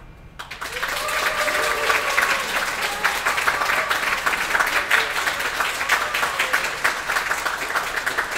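Audience applause breaking out about half a second in, right after the final note of a string quartet, quickly swelling to steady clapping, with a few voices calling out in the first seconds.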